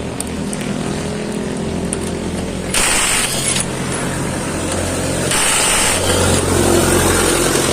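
Cordless battery impact wrench run in two short bursts, one about 3 seconds in and one about 5 seconds in, over a steady low engine-like hum.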